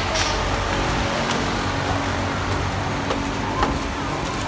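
Steady mechanical hum and hiss, with a few light taps.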